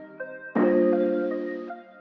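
Background music: short pitched melody notes over a chord that comes in about half a second in and fades away.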